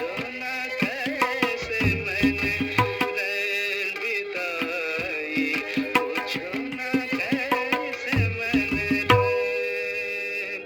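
Tabla playing along with a recorded film song: quick strokes with deep bass booms from the larger drum, over a sustained, wavering melody. The deep booms cluster near the start, around two seconds in, and again around eight to nine seconds in.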